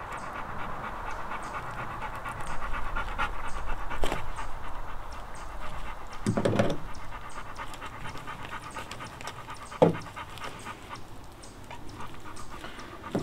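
A dog panting rapidly and steadily, with a couple of brief louder sounds, about six and a half and ten seconds in.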